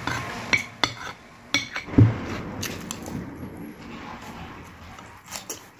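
Metal fork and spoon clinking and scraping against a ceramic plate while eating, with several sharp clinks in the first three seconds, the loudest about two seconds in, and a couple more near the end; chewing in between.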